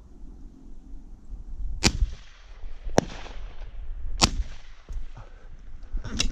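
Four shotgun shots at thrushes, spread over about four seconds, each a sharp crack with a short echoing tail.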